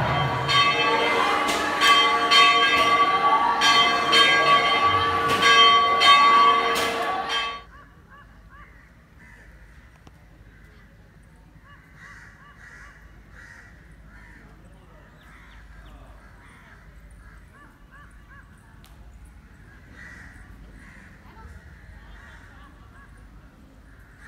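Hindu temple bells ringing with regular strikes over loud music with long held notes and sliding pitches, cutting off suddenly about seven and a half seconds in. After that, crows caw faintly and repeatedly over quiet outdoor background sound.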